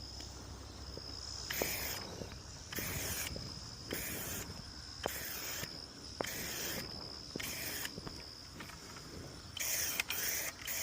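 Insects calling outdoors: a steady high-pitched whine, with swells of high hiss and faint clicks about once a second.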